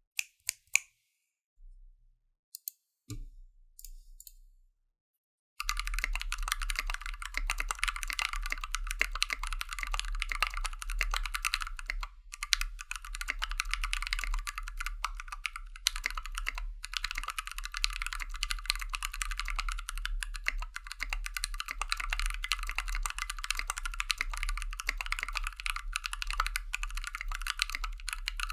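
Custom aluminium-case TOFU60 60% mechanical keyboard with lubed and filmed TKC Kiwi tactile switches on a brass plate under PBT keycaps, being typed on. A few separate keystrokes come first, then fast continuous typing starts about six seconds in and runs on with a couple of brief pauses.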